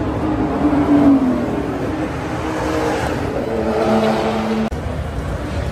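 High-powered race car engines running hard past a grandstand in a roll race: the engine note falls in pitch in the first second, holds steady, then rises again near the end. It breaks off for an instant about three quarters of the way in.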